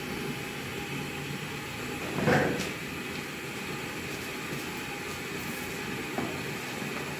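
Steady low rumble with a hiss from a lidded enamel pot cooking on a gas stove burner. A brief thump comes about two seconds in, and a light click near the end as the pot lid is taken by its knob.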